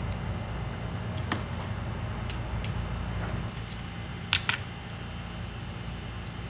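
Sharp small clicks of handling on a repair bench over a steady low hum, the loudest a quick double click about four seconds in.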